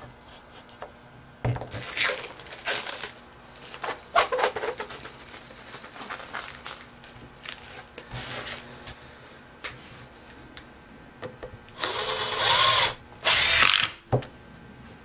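Cordless drill driving a screw into a board: two short runs of the motor about 12 and 13 seconds in, the pitch falling off as it stops. Earlier, scattered scrapes and knocks of wood being handled on the bench.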